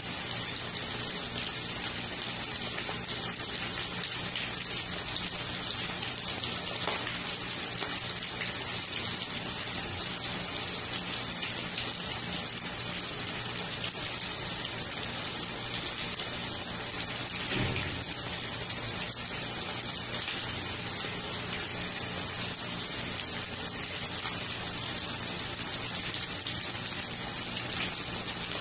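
Breaded chicken pieces shallow-frying in hot oil in a pan: a steady sizzle.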